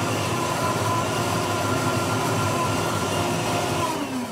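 Blendtec blender running, blending pancake batter with a steady motor whine. Near the end the motor winds down, its whine falling in pitch as it stops.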